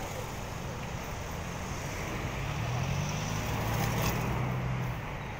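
Street traffic: a steady noise of passing cars, with one vehicle's engine drone growing louder and passing close about three to four seconds in, then fading.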